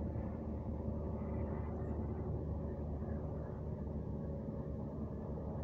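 A steady low rumble of outdoor background noise, with a faint hum.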